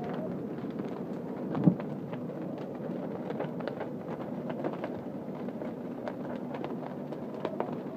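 Timber house burning fully, the fire crackling and popping over a steady low rumble, with one louder thump about a second and a half in.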